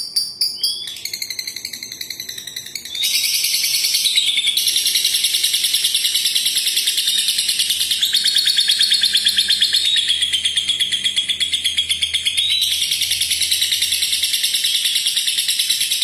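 Lovebird singing its long 'ngekek' song: a rapid, unbroken chattering trill of shrill pulses that gets louder about three seconds in, with short rising chirps where the trill briefly breaks.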